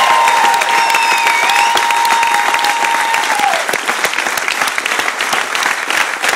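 An audience applauding, with a long held whoop over the clapping that trails off about three and a half seconds in. The clapping carries on, with individual claps standing out more toward the end.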